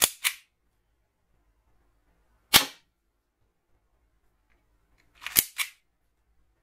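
Sharp clicks and cracks from an M09-2 toy revolver gel blaster being handled and fired. A quick double click comes at the start, a single sharp shot about two and a half seconds in, and a tight cluster of three cracks near the end.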